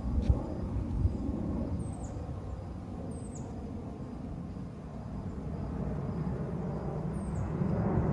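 Jet airliner passing unseen above the clouds: a low rumble that grows louder near the end. A bird gives a few short, high, falling chirps.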